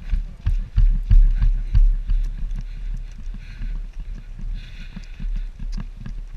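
Running footsteps and gear knocking against a body-worn camera: heavy thumps about three a second at first, then lighter, quicker steps.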